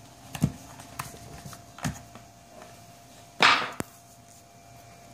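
Handling noises as an HDMI cable is unplugged from the back of a YG-300 mini LED projector: a few light knocks, then a brief, louder scrape about three and a half seconds in, with a click just after it.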